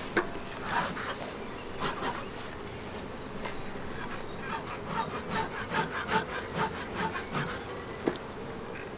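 Honeybees humming over an open hive, while a bee smoker's bellows is squeezed in a quick run of puffs around the middle and later part.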